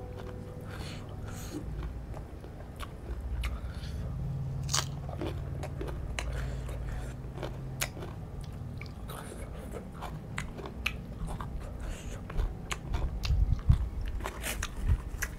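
A person chewing and biting crunchy raw green vegetables, with many irregular crisp crunches and mouth clicks.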